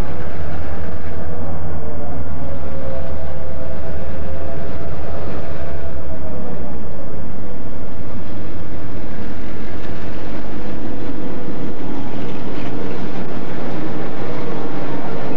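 Diesel locomotives running as they approach and pass close by at slow speed. A steady engine drone fills the first half. From about halfway through it gives way to the rumble and clatter of the units' wheels on the rails as they go by.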